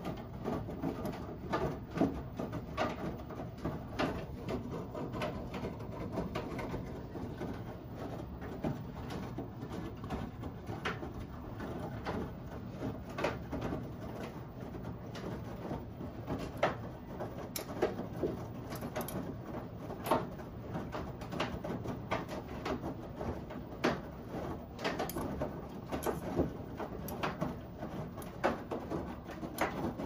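Front-loading washing machine in its rinse cycle: the drum turning with a continuous low rumble, water sloshing and wet clothes tumbling, with frequent irregular splashes and knocks.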